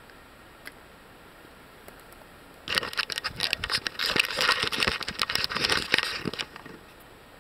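Camera handling noise: starting a little under three seconds in, a dense run of crackles, knocks and rustles for about four seconds as the camera is picked up and moved, then it stops.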